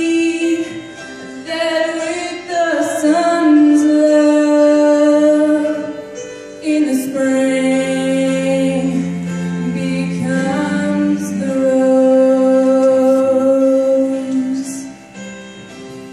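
A woman singing a slow song solo into a microphone, holding long notes. The singing fades away about fifteen seconds in, as the song ends.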